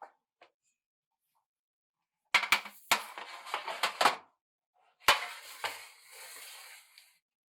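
Kitchen utensils and dishes clattering in two bursts of sharp knocks and clinks, the second running into a short scraping rustle.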